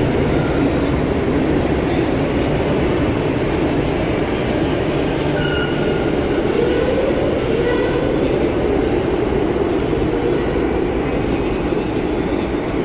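Madrid Metro Line 6 train running through an underground station with a steady rumble. A short electronic tone sounds about five and a half seconds in, then a motor hum rises and falls in pitch as the train moves out.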